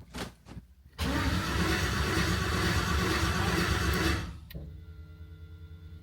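LS V8 engine cranked over by its starter for about three seconds without firing, then stopping; the engine turns over but won't start. A quieter steady hum continues after the cranking stops.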